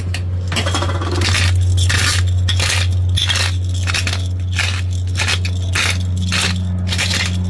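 Black pepper being ground: repeated crunching, scraping turns of a pepper mill, about two to three a second, over a steady low hum.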